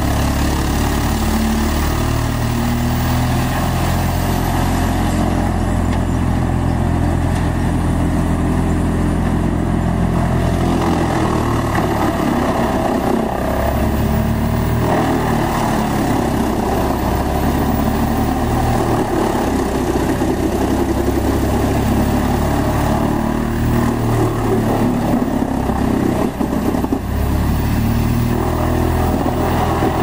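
Large industrial wood chipper's diesel engine running under load while logs and brush are fed into it, with a steady machine noise. Its note shifts about a third of the way in and wavers again near the end as the load changes.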